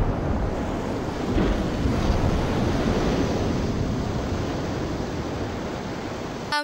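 Long rumble of a huge explosion: a dense, rushing noise, heaviest in the lows, that holds steady and cuts off abruptly at the end.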